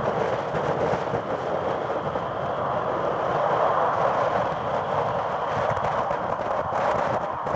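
Loud, steady jet noise from a Boeing F-15QA Eagle's twin GE F110 turbofan engines as the fighter climbs out under power after a touch-and-go.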